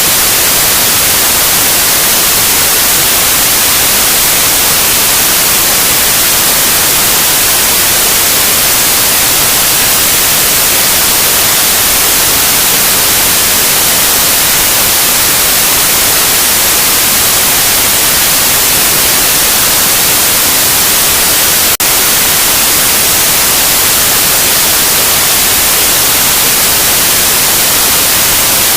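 Loud, steady white noise: an even hiss across the whole range, brightest in the treble. About three quarters of the way through there is a single faint click where the noise dips for an instant.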